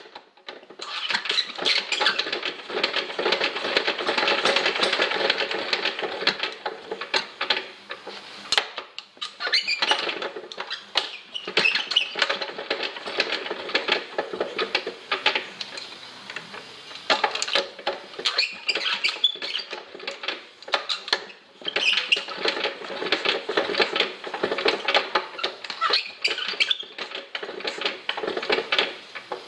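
Old Chaise Véga stationary petrol engine running unevenly with a dense, irregular mechanical clatter, faltering briefly several times.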